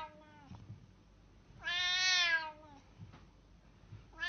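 A cat meowing: one long, drawn-out meow in the middle, with the end of a previous meow at the start and the beginning of the next right at the end.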